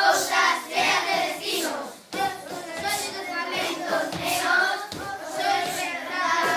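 Children rapping together in chorus, with hand claps. The voices break off briefly about a third of the way in, then go on.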